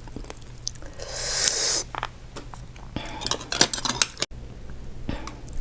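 Hands working through a seafood boil: crab shell clicking and cracking in a cluster about three seconds in, after a short hiss about a second in.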